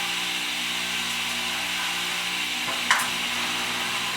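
Table saw running with its blade cutting through a board: a steady motor hum under the sawing noise, with one short sharp squeak about three seconds in.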